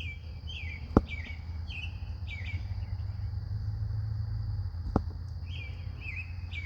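A bird singing a series of short, falling chirps, repeated about twice a second, over a steady high insect drone and a low rumble. Two sharp clicks, about a second in and again near five seconds, are the loudest sounds.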